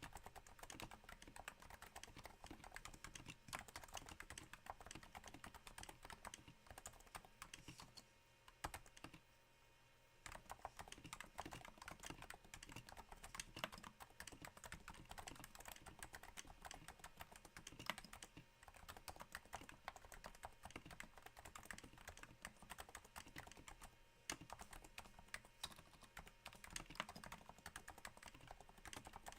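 Typing on a Cooler Master Novatouch with Topre switches fitted with Hypersphere silencing rings, on a thin desk mat: a faint, steady patter of damped keystrokes that sounds a little like rain, with a brief pause about a third of the way in.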